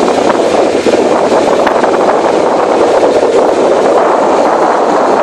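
Motorboat under way at speed: a steady, loud mix of engine noise, rushing water from the wake and wind buffeting the microphone.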